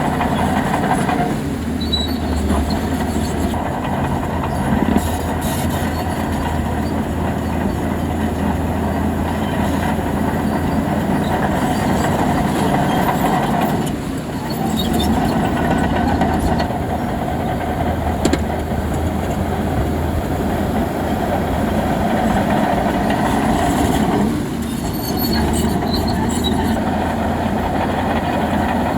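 Large bulldozer working: its diesel engine runs steadily with heavy mechanical noise, dipping briefly in level about halfway through and again near the end.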